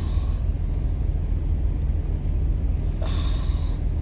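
Steady low rumble, with a short, faint higher sound about three seconds in.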